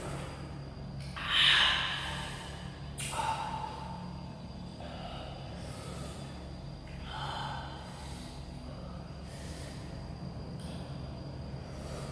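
A man breathing in and out sharply through the mouth and nose, in short gasps and sniffs every second or two, the loudest about one and a half seconds in: the breathing of someone whose mouth is burning from very hot chilli. A faint steady low hum lies underneath.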